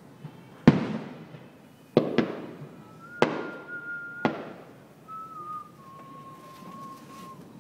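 Distant aerial fireworks display: five sharp shell bursts in the first four seconds or so, each echoing as it fades. Over and after them comes a long steady high whistle that drops in pitch in a few small steps.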